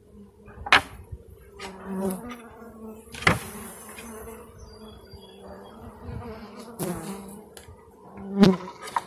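Steady buzzing hum of a mass of Italian honey bees on and around an open hive. About four sharp knocks of wooden hive boxes being handled cut through it, the loudest near the start and near the end.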